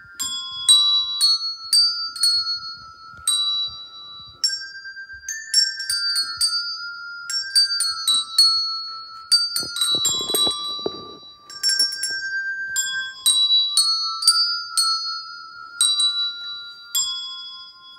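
A set of coloured handbells rung by several players, one note at a time, picking out a melody. Clear ringing bell notes come about two a second, each ringing on briefly after it is struck.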